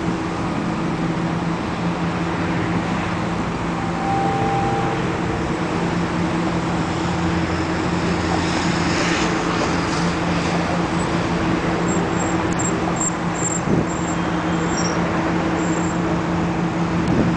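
Steady engine rumble with a constant low hum, with a few short high chirps near the end.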